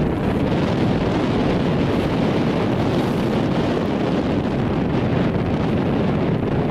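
Strong wind buffeting the microphone: loud, steady, rough noise with a heavy low rumble.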